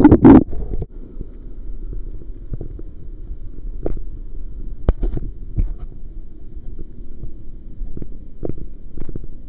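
Pressure-washer spray from the foam lance hitting the waterproof camera, loud and cutting off under a second in. After it comes a low steady rumble with a few scattered clicks.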